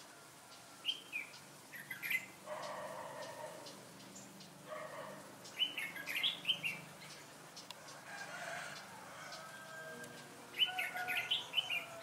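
Red-whiskered bulbul singing: short, bubbly phrases of quick whistled notes, four times with pauses between.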